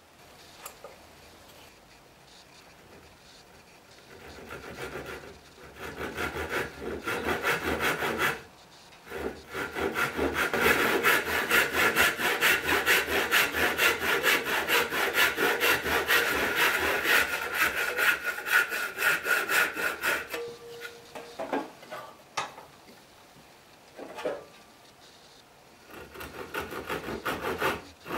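Hand saw cutting through a piece of wood clamped in a bench vise, in rapid back-and-forth rasping strokes. It starts about four seconds in, pauses briefly, saws steadily until about two-thirds through, stops with a couple of light knocks, then starts again near the end.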